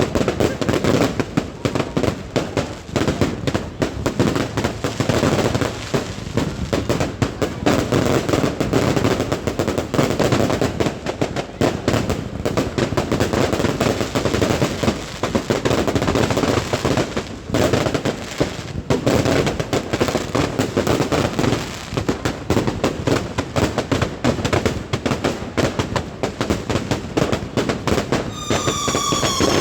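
Fireworks going off in a continuous barrage of rapid bangs and crackles, with a falling whistle near the end.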